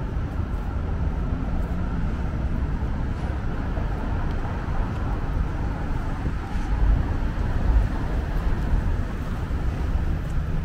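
City street traffic: passing cars and engines make a steady low rumble, which swells a little louder about seven to eight seconds in.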